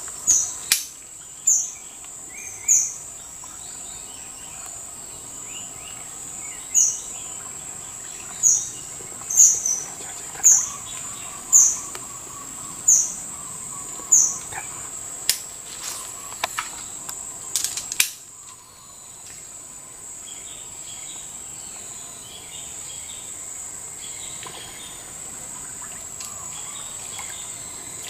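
Forest swamp ambience: a steady high-pitched insect drone with a bird giving short, sharp calls, a dozen or so, each a second or two apart. A few sharp clicks come past the middle, then only the drone and faint chirps remain.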